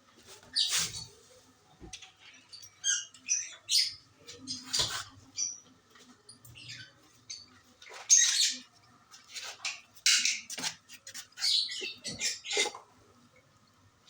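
Fischer's lovebirds giving short, high-pitched chirps and squawks in irregular bursts.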